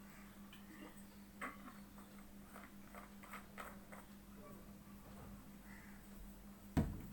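Quiet room tone with a steady low electrical hum, a few light clicks and taps, and one sharp knock near the end.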